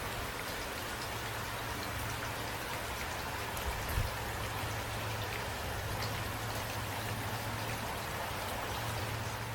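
Steady rain falling, with individual drops ticking over a continuous hiss and a low steady hum underneath. A brief low thump about four seconds in.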